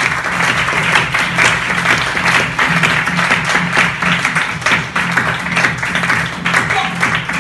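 Audience applauding with dense, continuous clapping, over music playing through the venue's loudspeakers.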